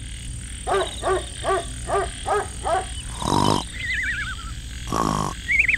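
Cartoon snoring sound effect: two snores, about three and five seconds in, each followed by a wobbling whistle on the out-breath. Before them come six short rising-and-falling animal-like calls over a faint high steady whine.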